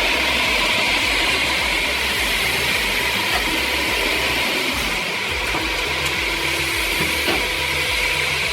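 Firewood processing machine running steadily: a constant mechanical hum and hiss with a faint steady whine and a low pulsing rumble underneath.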